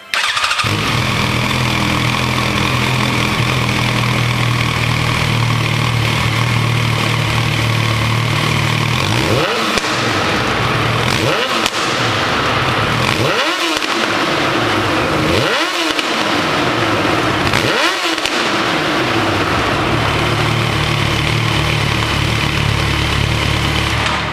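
Yamaha FZ1's inline-four engine breathing through a Yoshimura TRC slip-on exhaust, idling steadily, then blipped five times in quick revs about two seconds apart, then settling back to idle.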